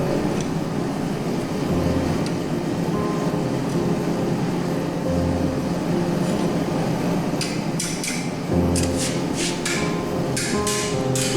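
Blacksmith's hammer striking steel on an anvil: a steady run of blows, about three a second, beginning a little past halfway. Background music with sustained notes plays throughout.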